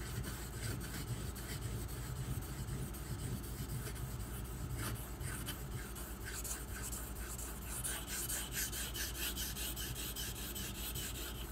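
The steel blade of a Bark River Bravo EDC knife rubs back and forth in repeated scratchy strokes across a 2000-grit Nubatama Ume whetstone. The strokes grind behind the edge to thin it and blend the bevel, not yet touching the apex.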